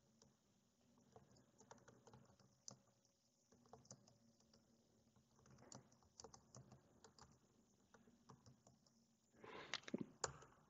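Computer keyboard typing: faint, irregular keystrokes that grow louder near the end.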